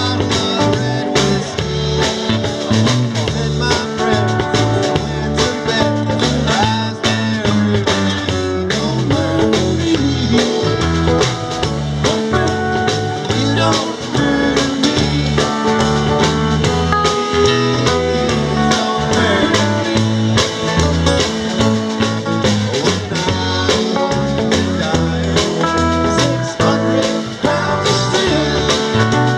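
Live rock band playing with a steady beat: electric guitars, acoustic guitar, drum kit and keyboard.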